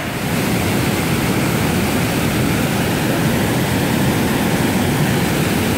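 Whitewater pouring over rocks at a waterfall: a steady, deep rush of water with no breaks.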